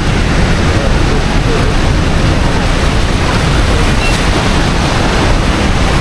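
Loud, steady rush of the Rhine Falls' water, an even noise with no breaks.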